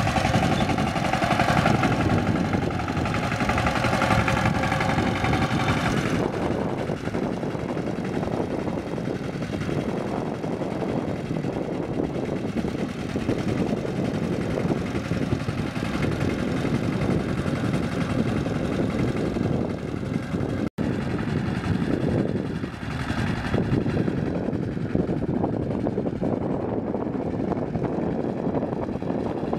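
Changhai two-wheel power tiller's single-cylinder diesel engine running steadily under load as its cage wheels work through a flooded paddy. The sound turns duller after about six seconds and breaks off for a split second about two-thirds through.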